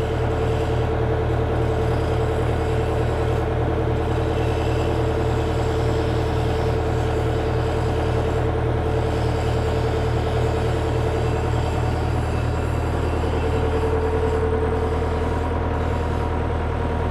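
IHI IS120GX excavator's diesel engine running steadily, with a steady high tone over the engine note. It picks up slightly at the start, while the freshly reassembled boom is tested under load.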